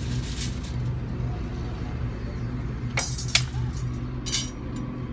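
Sharp metallic clinks of steel rebar and wire being worked by hand, a few separate strikes with the loudest two close together past the middle, over a steady low engine hum.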